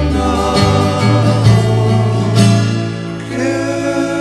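Music led by acoustic guitar, with some singing.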